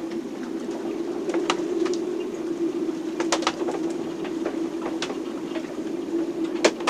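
Inside a sailboat's cabin in a storm: a steady low moaning tone with irregular sharp clicks and knocks over it, the loudest knock near the end.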